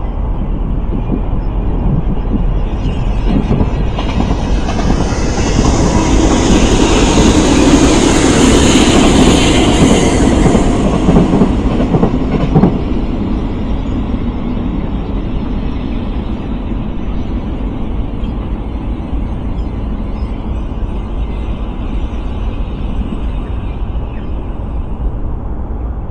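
A train passing along the track, its noise swelling to its loudest around eight to ten seconds in and then slowly fading away, with a single sharp knock just after the peak.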